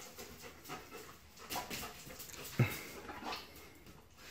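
A red Doberman and a Siberian husky play-wrestling on a concrete floor: scattered scuffles of paws and claws, with a short dog vocalization about two and a half seconds in.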